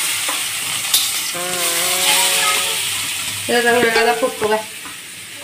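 Whole masala-coated fish sizzling as it fries in hot oil in an aluminium kadai. The sizzle is loudest at first and slowly dies down, with a short spatter about a second in as a second fish goes into the pan.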